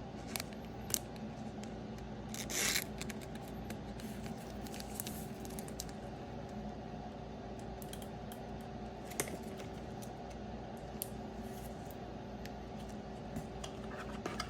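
Trading cards in plastic top-loader holders being handled: scattered small clicks and a short scratchy rustle about two and a half seconds in, over a steady low hum.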